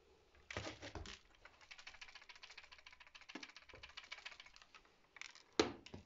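Fast, uneven clicking and tapping of a serval's paws and claws on a hard vinyl-tile floor, after a louder scuffle about half a second in. Two sharp knocks near the end.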